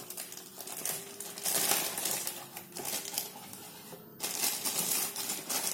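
Small plastic toy washing machine being handled: light plastic clicks and rustling, with two louder bouts of rustling, about a second and a half in and again after four seconds.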